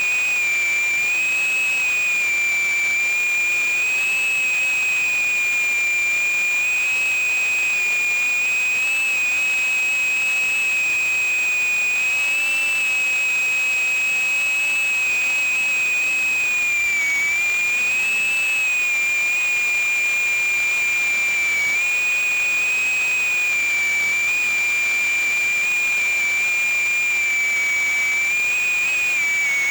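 Micro FPV drone's small brushless motors and propellers whining in flight, a steady high-pitched whine that wavers slightly in pitch as the throttle changes, with a hiss of air beneath.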